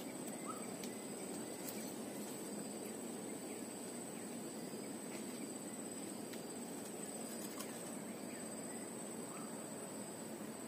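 Steady outdoor ambience: a constant high-pitched insect note over a soft low hiss, with a couple of faint short chirps.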